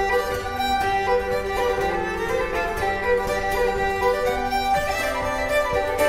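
Background music: a slow melody of held notes over a steady low note.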